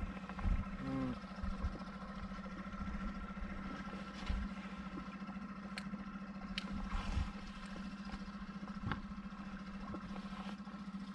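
Small inflatable boat's outboard motor running steadily at low speed, a constant drone, with a few low thumps and sharp clicks on top.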